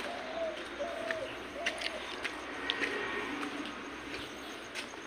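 Pigeons cooing: several short coos, each rising and falling in pitch, close together in the first second and a half, with a few faint sharp clicks among them.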